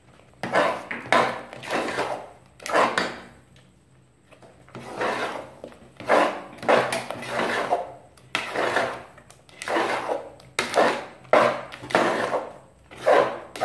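Spatula scraping and stirring thick mung bean halwa around the inside of a pressure cooker pot, about two strokes a second with a brief lull partway through.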